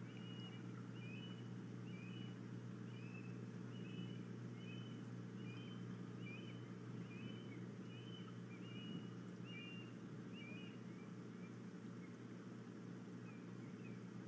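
An osprey giving a series of short, high whistled chirps, one to two a second, that die away about three quarters of the way through, over a steady low hum.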